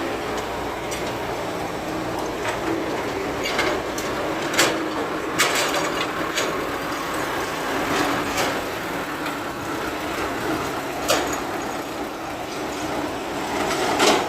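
Excavator running steadily at work, with a few sharp knocks, the loudest about four seconds in and near the end.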